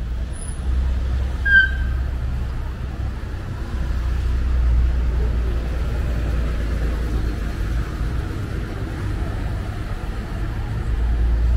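Street traffic: cars running along the road with a steady low rumble, and a short high chirp about a second and a half in.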